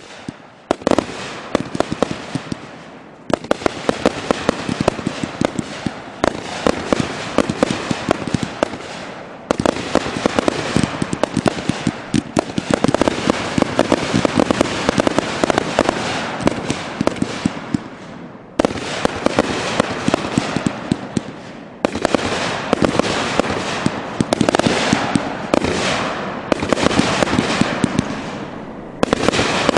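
Consumer aerial firework cakes firing rapidly: a dense, continuous crackle of sharp launch and burst reports, many a second. It comes in runs of several seconds broken by brief pauses.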